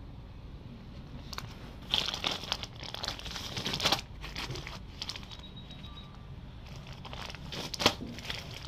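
Clear plastic bags of an engine gasket kit crinkling as they are handled, in two spells of rustling, one from about a second and a half in and another near the end, over a low steady hum.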